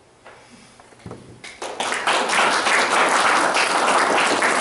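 Audience applauding, starting about a second and a half in.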